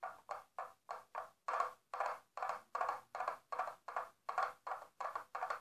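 Coconut shell halves knocked together in a steady clip-clop rhythm, about three knocks a second, imitating a horse's hoofbeats as a foley effect.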